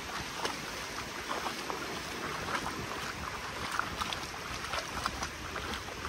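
Small waves washing onto a beach, a steady wash of water with many short splashes and fizzing.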